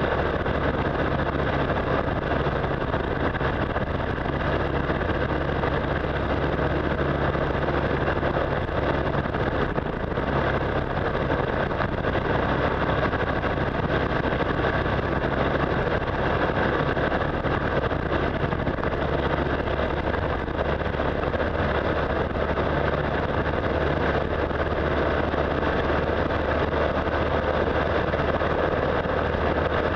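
Motorcycle engine running at a steady cruise, mixed with a constant rush of wind and road noise.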